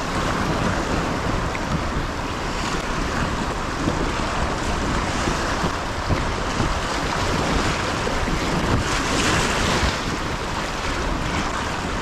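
Strong wind buffeting the microphone, with choppy river water splashing against a kayak, a steady rushing noise.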